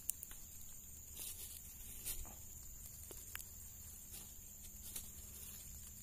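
Faint, scattered rustles and small snaps of dry oil palm fibre as hands dig through a rotting palm fruit bunch and pull out mushrooms, about five short sounds spread over a few seconds.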